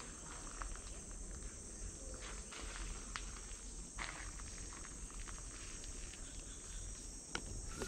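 Steady high-pitched drone of rainforest insects, with scattered soft footsteps on a leaf-strewn path.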